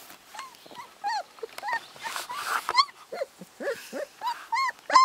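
A puppy whimpering and whining in short, high, arching cries that come faster and louder towards the end.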